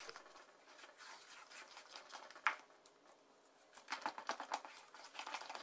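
A utensil stirring thick cake batter in a stainless steel bowl, giving faint scrapes and taps against the metal. There is one sharper click about two and a half seconds in and a quicker run of strokes near the end.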